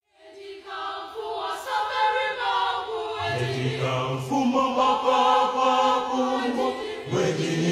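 Choir-like group of voices chanting in sustained, held notes; a deeper note joins about three seconds in.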